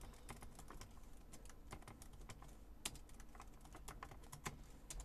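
Faint typing on a computer keyboard: quick, irregular key clicks, with a louder key strike about three seconds in and another a second and a half later.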